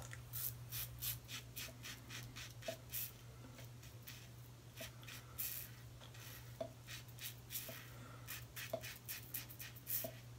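Double-edge safety razor with a Gillette 7 O'Clock Sharp Edge blade scraping through lathered stubble on the chin and neck. Faint short rasping strokes come in quick runs with brief pauses between them.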